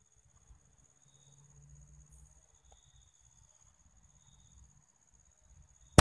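Quiet outdoor background with faint, steady high insect tones and a low rumble. A single sharp gunshot crack from the hunting rifle comes right at the very end.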